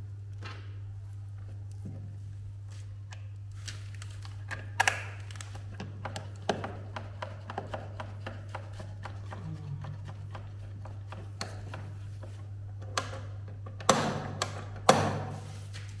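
A plastic push-button switch box being handled and fitted against a wooden cabinet panel: a scatter of small clicks and knocks, then a few sharper knocks near the end, over a steady low hum.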